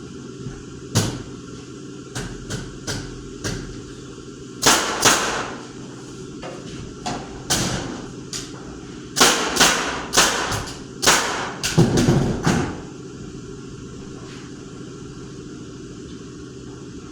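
A series of irregularly spaced knocks and thuds, like hammer blows on construction material, bunched in a pair about five seconds in and a fast run from about nine to thirteen seconds in, over a steady low hum.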